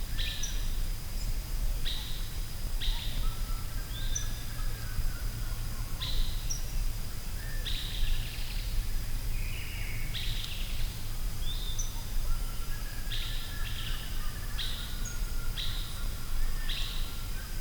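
Forest ambience: small birds chirping in short calls, roughly one a second and sometimes in quick clusters, over a steady low rumble and a thin, steady high-pitched whine.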